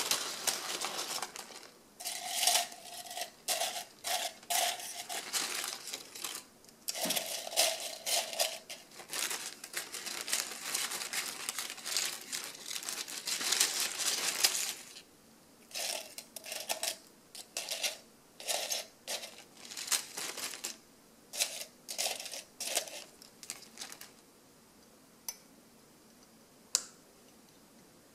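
Dried guava leaves and a plastic bag crinkling and crackling as the leaves are handled and dropped into a glass jar. The crinkling is dense for the first half, breaks into separate short rustles after that, and ends with a few light clicks near the end.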